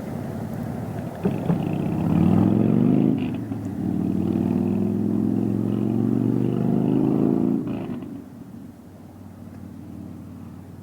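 A motor vehicle's engine running, growing louder about two seconds in, holding steady, then fading away about eight seconds in. A sharp click comes just before it swells.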